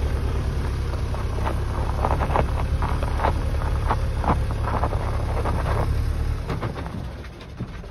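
Mercedes-Benz Vario 818 truck's four-cylinder diesel engine running low and steady as it crawls over loose gravel, with stones crunching and popping under the tyres. The engine drops away after about six seconds as the truck moves off.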